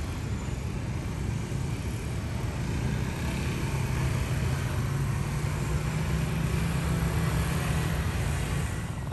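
Kawasaki Z125 small single-cylinder motorcycle engine running at low speed as the bike rides by, a steady low drone that grows louder about three and a half seconds in as it passes close.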